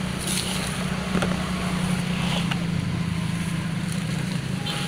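A steady low engine drone, with a few faint clicks over it.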